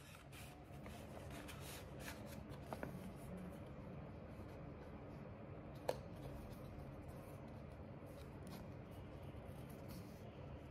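Faint rustling and sliding of a paper red-packet envelope being handled, with scattered soft ticks and one sharp click about six seconds in, over a low steady room hum.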